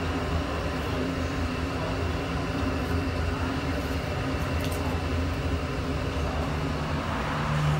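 Steady low mechanical hum over an even rush of background noise.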